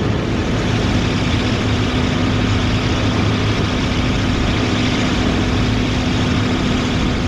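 Diesel farm machinery engine running steadily under load, with a constant low hum and a steady droning tone.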